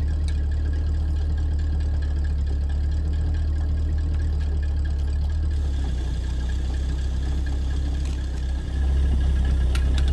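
An engine idling steadily with a strong, even low hum. It dips briefly near the end, and a few light clicks come just after.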